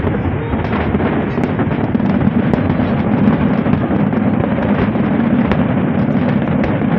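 Fireworks display going off in a dense, continuous barrage of bangs and crackling, with no breaks.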